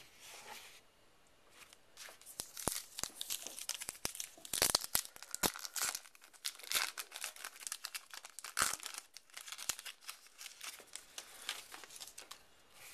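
A trading-card pack wrapper being torn open and crinkled by hand, a run of crackling tears and rustles with a few louder rips, starting about two seconds in.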